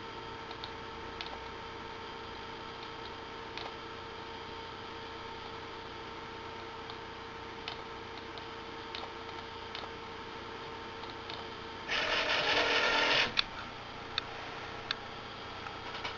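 A steady hum with faint, irregular clicks. About twelve seconds in, a loud rushing burst lasts just over a second, then stops.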